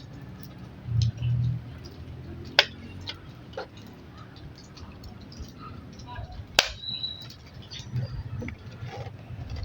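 Two sharp clicks a few seconds apart as parts of an LED TV are handled and fitted back together during reassembly, over a low background murmur.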